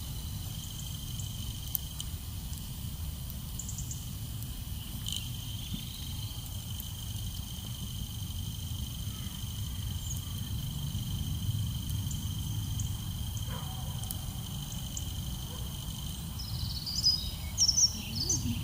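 Outdoor evening ambience: steady high-pitched insect chirring, crickets, over a low rumble of wind noise, with a few short high chirps near the end.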